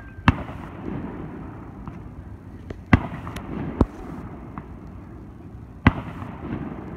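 Fireworks going off: four sharp bangs a second or more apart, the loudest near the start and about three seconds in, each followed by a low rolling rumble, with a few fainter pops between.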